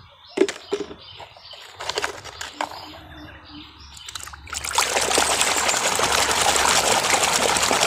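A plastic toy being dipped and swished in a basin of muddy water, with small splashes and drips. About two-thirds of the way in it gives way to a steady, louder scrubbing and sloshing as the toy is rubbed in soapy foam.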